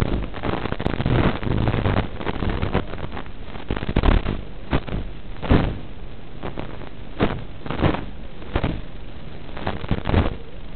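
FPV racing quadcopter in flight, heard through its onboard audio: a rush of wind and propeller noise that surges in short loud bursts several times.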